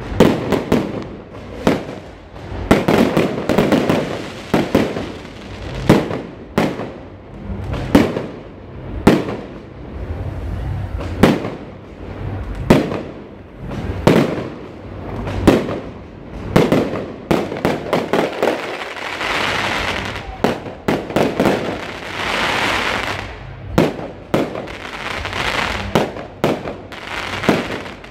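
Fireworks display: aerial shells bursting with repeated sharp bangs, roughly one a second. In the second half there are longer stretches of crackling from the crackle-effect stars.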